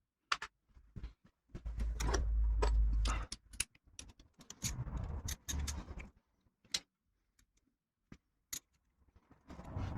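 Hand ratchet with a 10 mm socket clicking in quick runs as the oil pump bolts on a Subaru EJ253 engine are run down, with metal tools clinking. The bolts are only being drawn up snug, not torqued.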